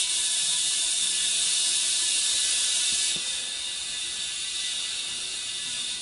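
Compressed air hissing steadily through an air chuck into a small ATV tire whose bead has not yet seated on the rim. The hiss changes a little past three seconds in and eases slightly toward the end.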